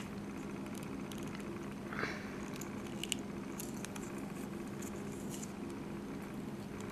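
Faint rustling and small ticks of thread being drawn through a tatting shuttle's work and snugged into double stitches, over a steady low hum.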